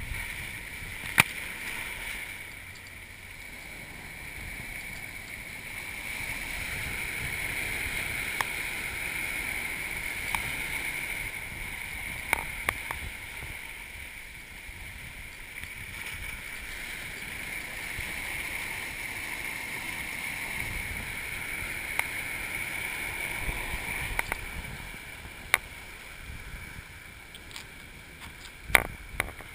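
Ocean surf breaking and washing over a camera at the water's edge: a rush of water that swells and fades slowly, twice building for several seconds, with scattered sharp ticks of water and sand striking the camera.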